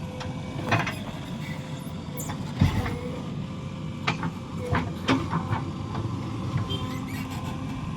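Diesel engine of a backhoe loader running steadily, with several sharp metal clanks and knocks at irregular intervals, typical of the bucket and arm at work loading mud.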